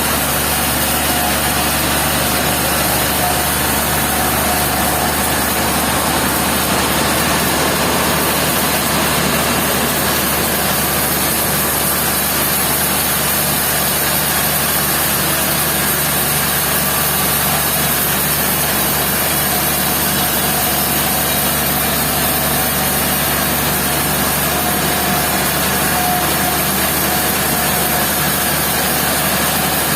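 Sawmill machinery running steadily, a constant engine-like drone and hiss that holds level without a break.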